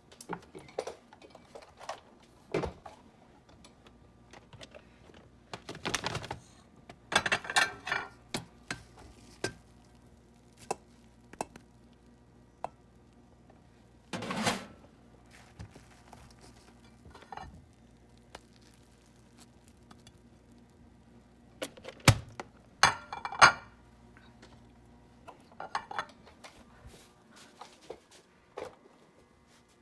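Kitchen handling noises while serving from a rice cooker: its plastic lid opened and dishes handled, heard as scattered knocks, scrapes and clatter, with the sharpest clack about three quarters of the way in.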